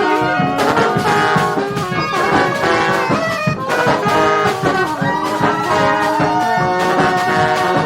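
Brass street band playing a tune live: trombones and trumpets in several parts over a drum beat.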